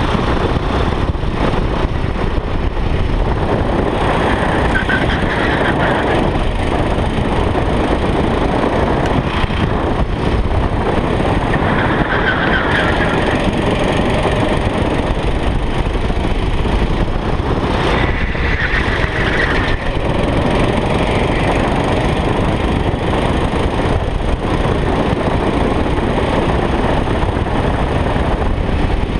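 Go-kart engine running at racing speed, heard from a camera mounted on the kart, with steady rushing wind on the microphone.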